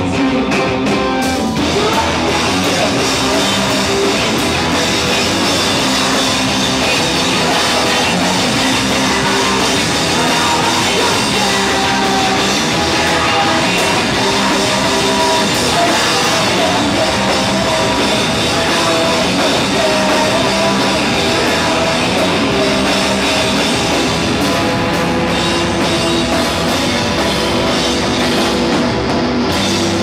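Live rock band playing loudly and continuously: electric bass, guitar and drum kit.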